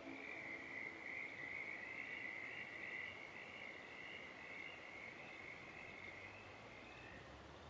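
A chorus of frogs calling, a steady high-pitched trilling that carries on throughout. A faint low hum comes in near the end.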